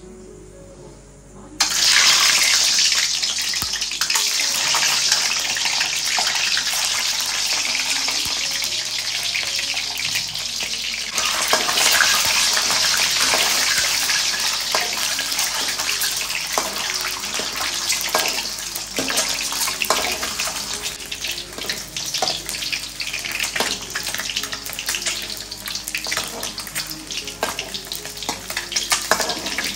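Peeled hard-boiled eggs sizzling in hot oil in a wok. The sizzle starts suddenly about a second and a half in as the eggs go into the oil, then runs on with scattered popping and spitting that grows more frequent later.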